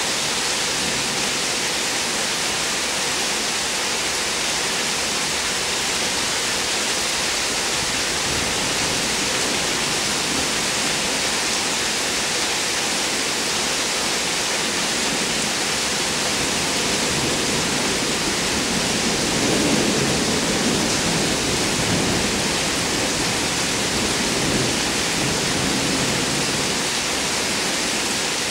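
Heavy rain falling steadily in a thunderstorm. A low rumble of thunder swells and fades about two-thirds of the way through.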